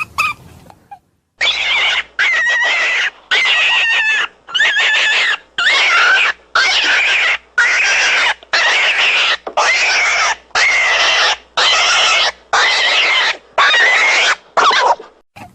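Recorded rabbit call: a string of about fourteen loud, raspy screams, each under a second long, coming roughly once a second after a brief pause at the start. This is the kind of rabbit distress scream played to draw game.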